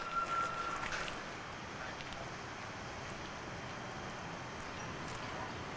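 Steady low rumble and hiss of slow-moving old electric locomotives in a railway yard, with a brief thin high-pitched squeal during the first second.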